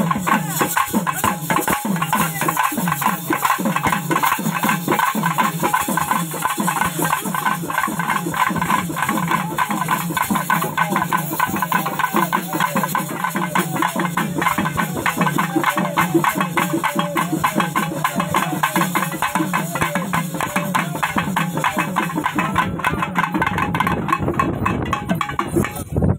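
Fast, continuous drumming of a festival procession's percussion band, with rattling percussion over it.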